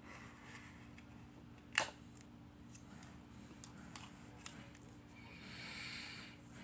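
A sharp click about two seconds in, a few faint ticks, and a soft rustle near the end, over a low steady hum.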